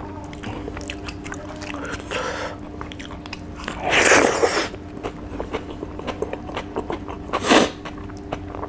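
Close-miked eating of rice and dried fish by hand: small wet clicks of fingers working the food, a loud wet mouthful about four seconds in, then chewing and another loud smack about three seconds later. A faint steady hum lies underneath.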